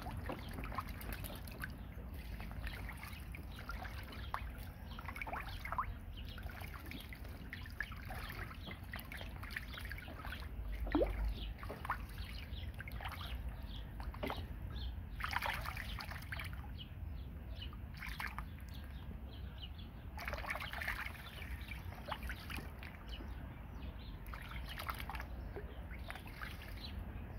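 Two ducklings splashing and paddling in a shallow plastic paddling pool, the water sloshing and dripping in short, scattered splashes.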